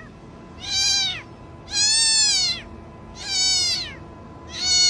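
A cat meowing four times at an even pace, each meow rising and then falling in pitch.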